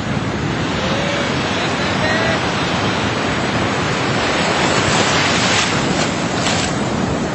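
Sea surf washing on the beach, a steady loud rush, with wind buffeting the microphone; faint distant voices a second or two in.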